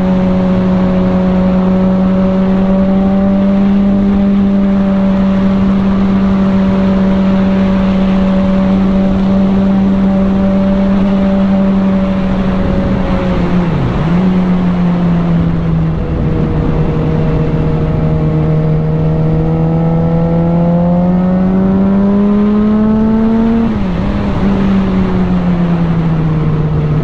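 Sport bike engine running at steady revs while riding, with wind rush on the microphone. About halfway through its pitch dips briefly, then it climbs gradually and drops sharply near the end as the revs fall.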